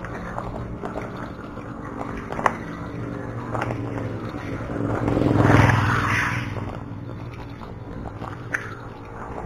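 Bicycle rolling over a rough, rocky dirt road: the tyres crunch and the bike rattles steadily, with scattered sharp clicks. About five seconds in, a louder rushing swell rises and fades over a second or two.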